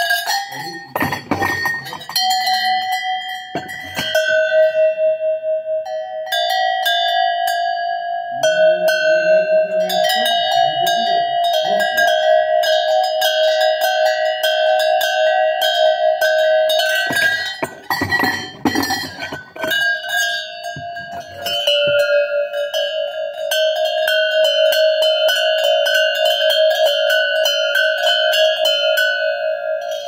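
Several handmade metal goat bells shaken together by hand, their clappers striking rapidly in a continuous clanging ring. The pitch shifts a few times as a different set of bells is rung.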